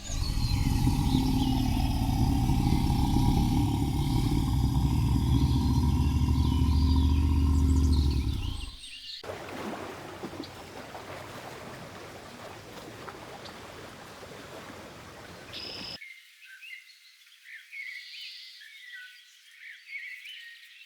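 Outdoor wildlife ambience in three cut-together parts. For the first nine seconds a loud, steady low rumble runs under birds chirping, then an even hiss follows, and over the last five seconds only birds chirping are left.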